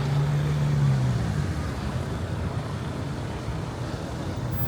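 Street traffic: a vehicle's low engine hum fades away about a second in, leaving a steady rumble of road noise.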